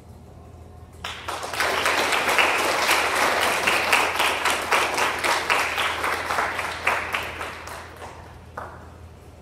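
Audience applause, many people clapping, starting about a second in and dying away over the last couple of seconds.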